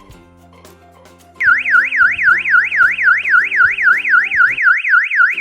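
Electronic siren of a Tuya WiFi/433 MHz home burglar alarm starting loudly about a second and a half in, warbling up and down in pitch about three times a second. Soft background music plays before it and under it.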